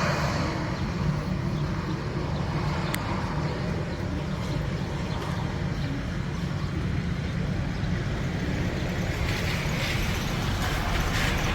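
Steady low engine rumble under an even outdoor hiss, the hiss growing a little louder near the end.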